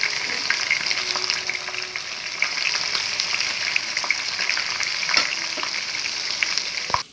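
Marinated chicken pieces frying in hot oil in a pan: a steady sizzle with crackling pops and a few sharp clicks. It cuts off abruptly near the end.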